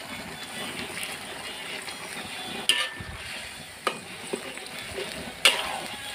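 Rendang spice paste frying in hot oil in a wok, a steady sizzle, stirred with a metal spatula that clacks sharply against the wok three times.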